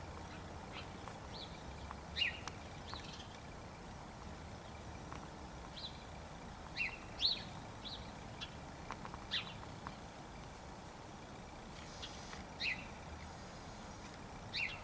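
Birds chirping: short, high chirps, some sliding down in pitch, scattered irregularly over about fifteen seconds.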